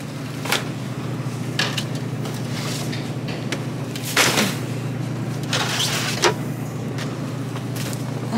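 Several short clunks and clatters as gallon milk jugs and a refrigerated case door are handled, over a steady low hum.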